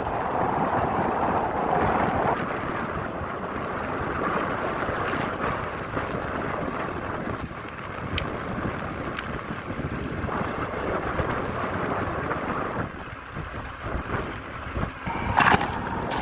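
Strong wind buffeting the microphone along with falling rain, a rough, uneven rushing. There is a single sharp knock near the end.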